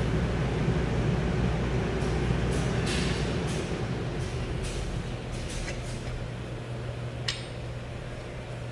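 Steady low hum of a repair shop's background machinery that slowly eases off, with a few light clicks.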